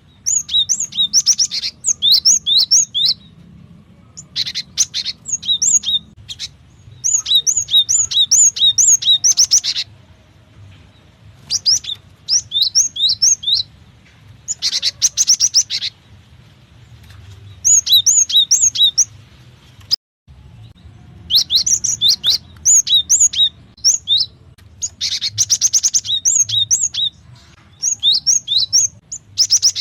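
Cinereous tit (gelatik batu) calling: bursts of quick, high, repeated chirping notes, each run lasting one to a few seconds, with short pauses between them.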